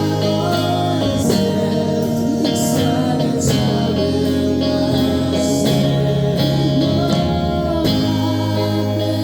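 A live rock song: a singer's voice over guitar and a band, with held notes and strummed chords.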